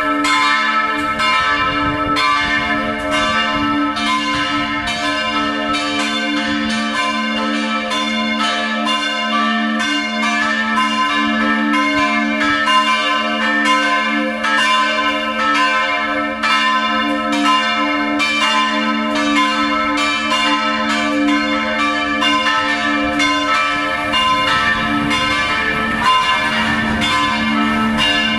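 Full peal of three swinging church bells tuned a', c'' and d'': two St. Florian bells of 1956 and a Böhler bell of 1923. Their strikes overlap in a continuous, uneven clangour over a steady low hum.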